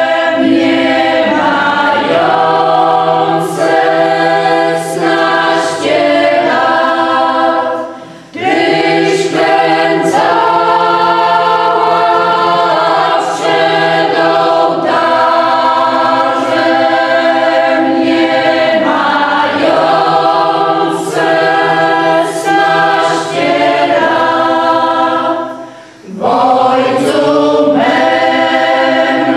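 A mixed group of women's and men's voices singing a folk song together, unaccompanied, in long held phrases, with short breaths between lines about eight seconds in and again near the end.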